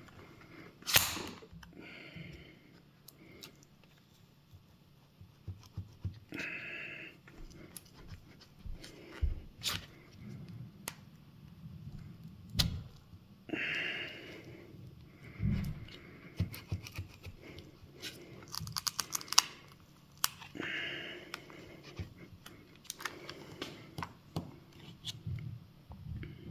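Tools prying at a Nintendo Switch battery that is stuck down with strong adhesive: irregular sharp clicks and taps, with a few longer scraping sounds between them.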